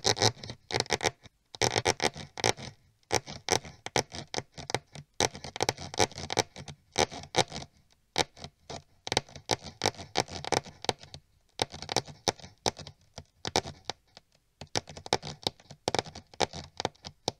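Mice scurrying sound effect: rapid, irregular pattering and scratching of small claws, in bursts of a second or two with short pauses between.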